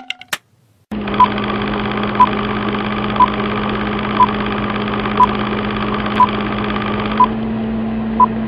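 Film-countdown sound effect: a steady film-projector whir with a low hum, and a short beep once a second, eight times, marking each number of the countdown.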